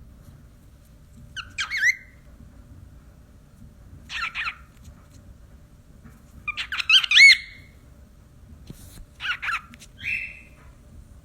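Pet parrot calling in about five short bursts of squawky, gliding chirps and whistles, the loudest just past halfway.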